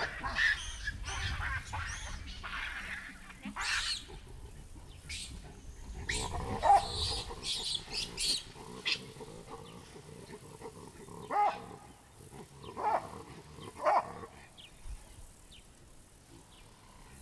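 Chacma baboons calling: a flurry of shrill, high calls over the first several seconds, then a few loud, lower barks at intervals, dying away near the end.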